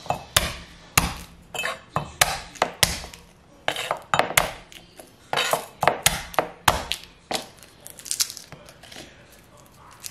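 Garlic cloves smashed with the flat of a chef's knife on a wooden cutting board: about a dozen sharp knocks over seven seconds or so. Near the end, lighter crackling as the papery skins are peeled off the crushed cloves by hand.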